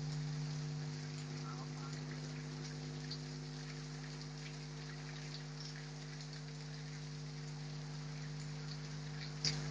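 Rain falling steadily, with individual drops ticking on nearby surfaces over a steady low hum. A single sharper tap comes near the end.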